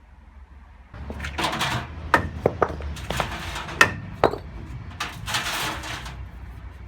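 Sharp knocks and rasping scrapes from a brick-wrecked front-loading washing machine being handled, starting about a second in, with about five hard knocks among three longer scraping swells. The drum is seized and will not turn.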